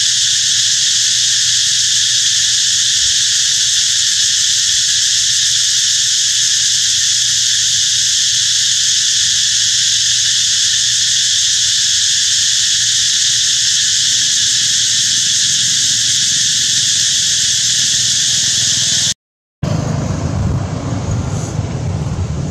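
Dense insect chorus in forest, a loud steady high buzzing in several pitch bands. It cuts off about 19 seconds in, and after a brief gap a lower, rougher rumble takes over.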